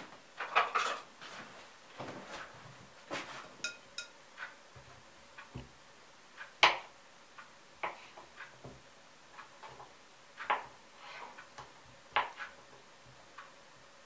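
Kitchen knife cutting boiled potatoes on a wooden chopping board: irregular knocks of the blade on the board and soft clicks, with one louder knock about halfway through.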